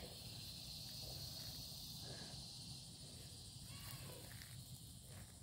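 Quiet outdoor ambience: faint, soft footsteps on dry grass under a steady high hiss.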